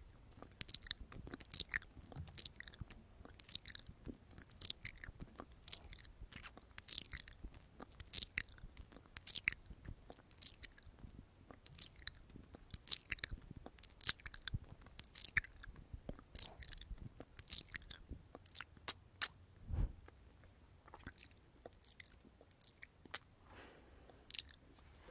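Close-up ASMR mouth sounds: wet lip smacks and tongue clicks right against the microphone, coming about one to two a second with a short lull about four-fifths of the way through. There is also one soft low thump just before the lull.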